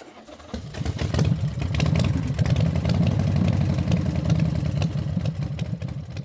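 Honda CBR250RR's parallel-twin engine running at a steady speed through an aftermarket racing pipe exhaust. It comes in loudly about half a second in, with sharp pops scattered through it.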